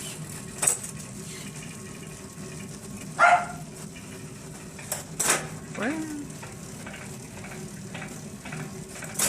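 Wahoo smart bike trainer being pedalled, heard close to the crank: a steady whirring with a faint rhythmic ticking, the abnormal noise the rider is trying to trace. A few louder sudden sounds stand out, the loudest about three seconds in.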